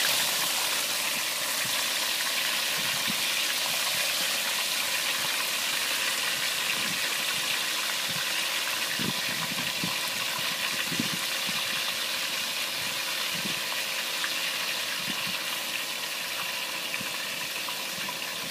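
Hot cooking oil sizzling steadily as chicken fries: an even hiss with scattered small crackles.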